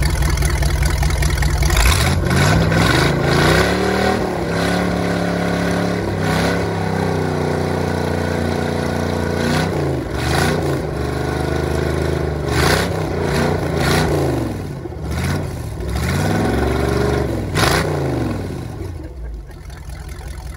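Freshly overhauled Chrysler 360 V8 marine engine on a test stand, idling and then revved up and down by hand at the throttle several times. It settles back to a quieter idle near the end.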